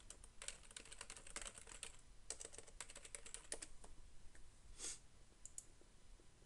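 Faint typing on a computer keyboard: a quick run of key clicks for about three and a half seconds, then one louder click about five seconds in and a couple of faint clicks after it.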